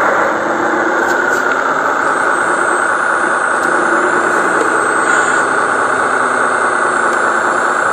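Model dump truck running with a steady engine-like drone and a high whine on top, the whine dipping slightly in pitch about a second in, as its raised bed tips out soil.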